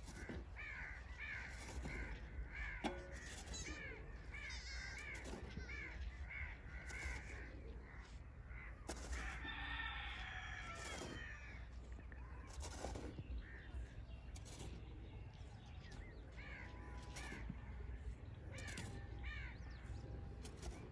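Birds calling in quick series of short, arched, harsh calls, with a louder burst of calling about nine seconds in. Under them come occasional short scrapes of a steel shovel in dry sandy soil.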